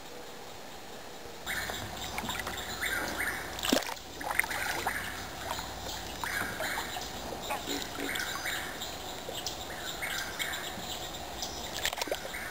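Water splashing and dripping from a kayak paddle beside the hull, starting abruptly after a second and a half of faint hiss, with one sharp knock a couple of seconds later.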